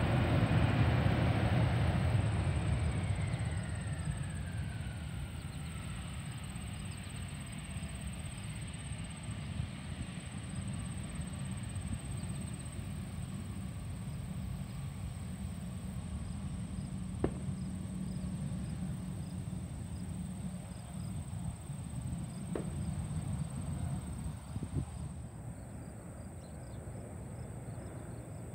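Jet airliner engines heard across the airfield, loudest at first with a whine that falls in pitch, then settling to a steady distant rumble. Two sharp clicks come midway, and crickets chirp faintly near the end.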